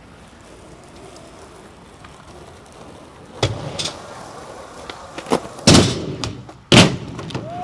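Skateboard dropping in off a quarter pipe: a sharp clack of the wheels meeting the ramp about three and a half seconds in, then a few sharp cracks of the board on the ground, the two loudest near the end. Low steady background hiss before the first clack.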